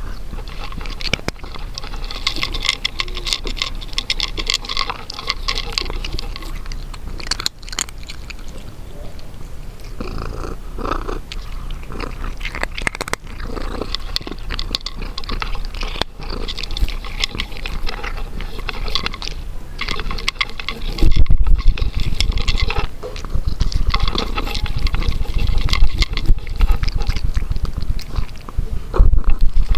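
A cat eating close to the microphone: quick, wet chewing and smacking that runs on without a break. From about two-thirds of the way in, a heavier, fast-pulsing low rumble joins it.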